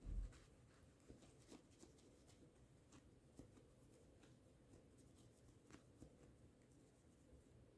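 Near silence with faint scattered scratches and small clicks of a phone being handled and cleaned, and a single low thump at the very start.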